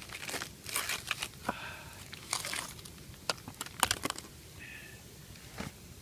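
Wood campfire crackling under cooking pots, with irregular rustling crackles and a few sharp pops, the loudest about four seconds in.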